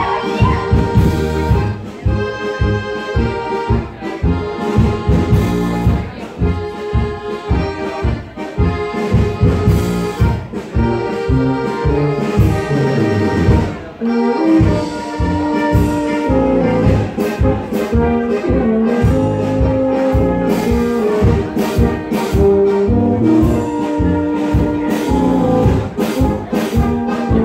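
Brass band playing a folk dance tune with a steady beat.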